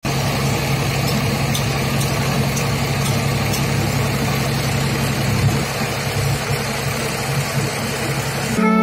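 Mitsubishi Canter PS120 dump truck's diesel engine running steadily at idle with its tipper bed raised to unload sand. Music comes in just before the end.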